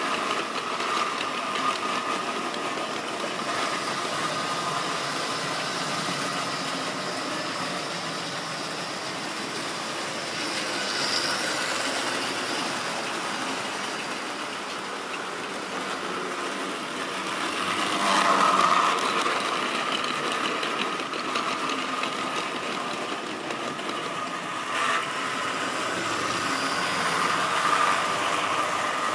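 Model railway trains running: a steady whirr of small electric motors and wheels running on the track, swelling louder a little past the middle.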